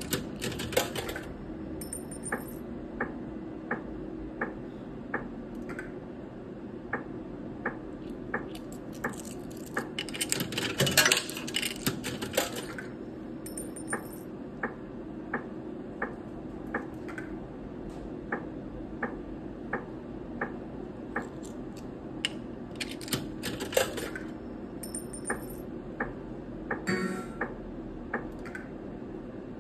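Video slot machine's electronic game sounds: a steady run of short ticks a little under a second apart, with a few short bursts of bright jingling chimes, the loudest about ten to twelve seconds in.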